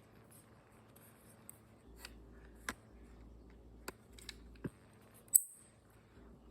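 Scattered light clicks, then one sharp, much louder click about five seconds in, over a faint steady background hum.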